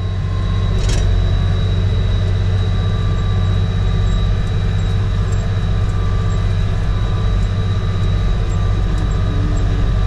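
Tractor engine running steadily under load, heard from inside the cab while pulling a loaded grain wagon, with a deep, even drone and a thin, steady high whine over it.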